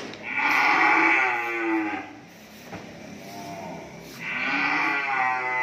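Cattle mooing: two long moos, the first starting right at the beginning and lasting about two seconds, the second starting about four seconds in.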